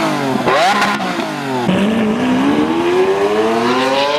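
Supercar engine accelerating hard through the gears: the pitch climbs, drops sharply at upshifts about half a second and about two seconds in, then climbs steadily through the next gear.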